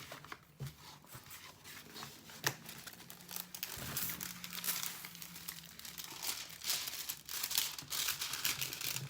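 Plastic crinkling and rustling as a diamond painting canvas in its plastic covering is handled and unrolled, with many short sharp crackles, busier in the second half.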